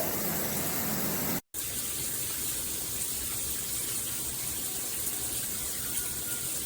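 Shower head spraying water in a steady hiss. The sound drops out for a moment about a second and a half in, then the spray continues unchanged.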